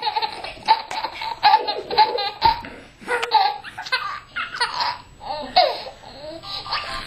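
Baby laughing in short repeated bursts of belly laughter.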